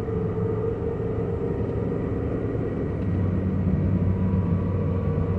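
Ford F-450 bucket truck's 6.8-litre V10 engine pulling at about 2,000 rpm with road noise while the truck drives at around 40 to 50 mph, heard from inside the cab. A steady hum that gets a little louder about three seconds in.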